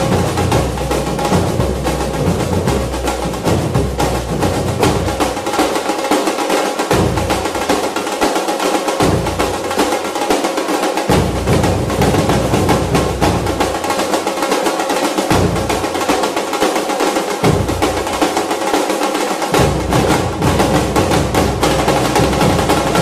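Background music driven by fast drums and percussion, its bass dropping out twice for several seconds.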